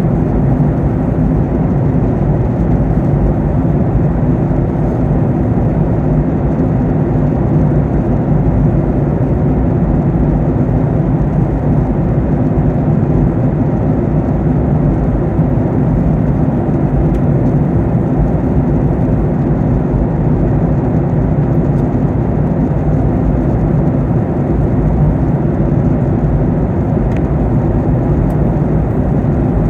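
Steady in-flight cabin noise of a Boeing 737-800 airliner: a constant rush of airflow with the low hum of its turbofan engines, several steady low tones under the noise, with no change.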